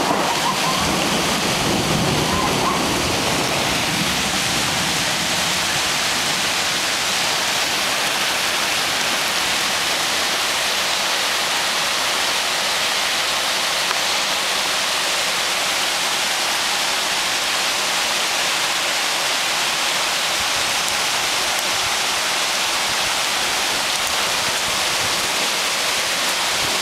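Heavy thunderstorm downpour: a steady, dense hiss of torrential rain that holds unchanged throughout.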